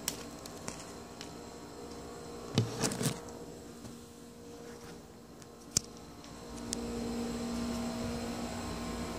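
A steady buzzing hum runs throughout and grows louder from about two thirds of the way in. Over it come knocks and bumps from a hand-held camera being handled: a loud cluster about two and a half to three seconds in, and one sharp click near the middle.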